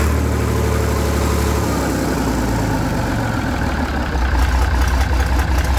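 Lister HRW6 six-cylinder water-cooled marine diesel engine running on its own, off the boat. A steady run gives way, from about four seconds in, to a heavier low pulsing beat at idle.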